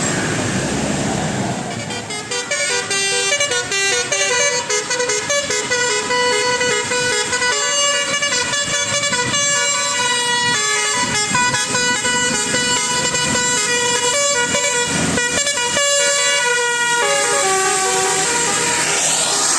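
Bus telolet musical air horn with a Basuri module playing a quick tune of stepped notes, starting about two seconds in after a low rumble and stopping shortly before the end.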